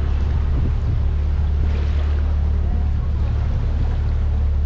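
Open canal tour boat under way: its motor running with a steady low hum over the rush of water along the hull.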